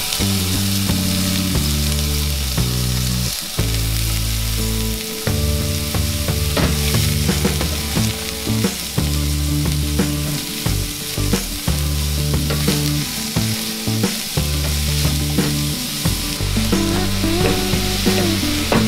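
Chopped onions and cumin seeds sizzling in olive oil in a stainless steel pot, stirred now and then with a spatula that scrapes the pot. Background music with a low bass line plays underneath.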